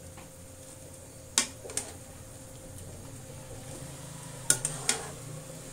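Metal kitchen tongs clinking against a wok while lifting boiled yardlong beans out of the water: two sharp clinks about a second and a half in and two more near the end, over a steady low hum.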